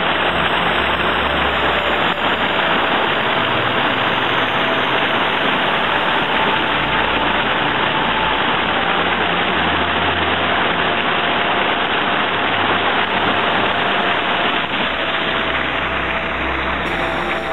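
Mountain stream rushing over rocks and small cascades: a steady, unbroken roar of water.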